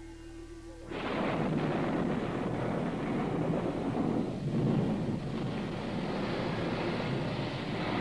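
Recorded thunderstorm sound effect on a Halloween effects cassette: after a brief steady tone, a heavy noisy rumble of thunder starts suddenly about a second in and rolls on.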